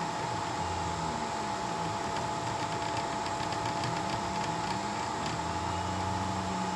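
Two 3D printers printing: a steady cooling-fan whir, with the stepper motors humming in low tones that keep shifting up and down in pitch as the print heads change speed and direction.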